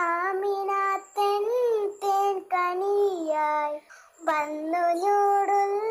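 A child singing a Malayalam devotional song in praise of the Prophet, solo and unaccompanied, in held notes broken by short pauses for breath.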